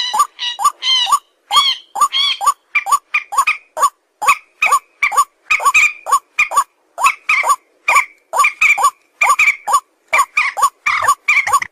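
An animal calling in a rapid series of short, squeaky pitched calls, about three or four a second, each call rising and falling slightly in pitch.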